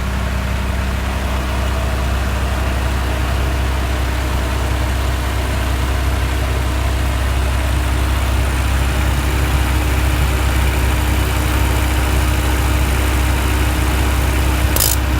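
A 1991 Honda Civic 1.5L engine idles with its Matsushita AC compressor running and making a rapid ticking noise, a fault that a replacement compressor has not cured. A single sharp click comes near the end.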